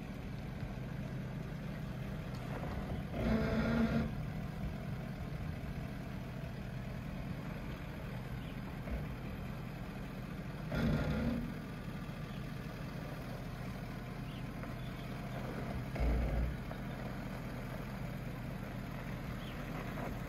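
Pickup truck engine running steadily at low speed while towing a fifth-wheel trailer, briefly louder three times as it takes more throttle.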